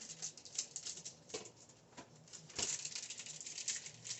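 Plastic cheese-slice packaging crinkling and rustling as it is handled, with a soft knock about two and a half seconds in, after which the crinkling grows louder and busier.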